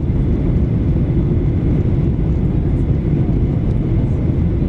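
Steady low cabin rumble of a Boeing 737-800 in flight: engine and airflow noise, with faint steady hums above it.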